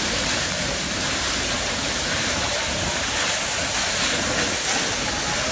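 A waterfall's water crashing onto rocks: a loud, steady rush of falling water.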